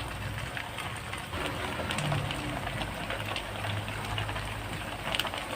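Sweet and sour pork with green pepper crackling and sizzling in a frying pan on the stove, many small pops over a steady hiss, with a low hum underneath.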